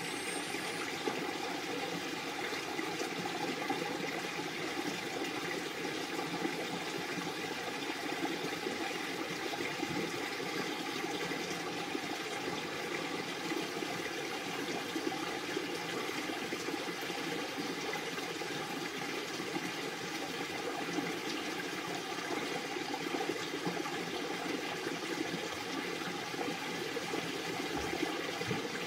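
Steady rush of flowing water, an even noise that does not change.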